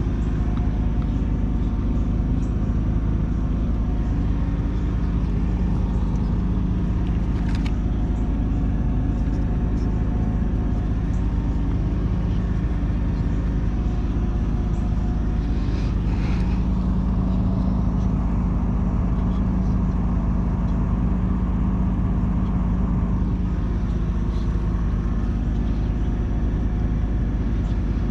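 1976 John Deere 450C bulldozer's diesel engine running steadily, its pitch shifting slightly about halfway through.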